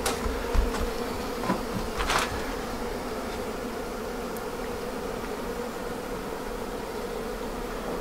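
Honey bee colony in an observation hive buzzing in a steady hum, with a few light ticks in the first couple of seconds. The workers are stirred up just before the swarm leaves with the old queen.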